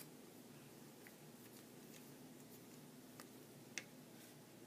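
Near silence with a faint steady hum, broken by a few faint clicks of a precision screwdriver and small screws against the iPhone's metal shield and frame. The sharpest click comes about three-quarters of the way through.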